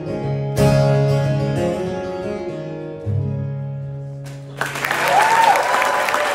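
Final strummed acoustic guitar chords ringing out and fading, with a last bass note change about three seconds in. About four and a half seconds in, the audience breaks into applause and cheering at the end of the song.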